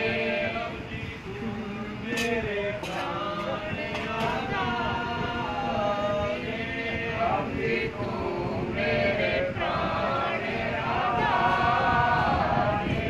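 A group of male voices singing a devotional chant together. A few sharp clicks come through about two to four seconds in.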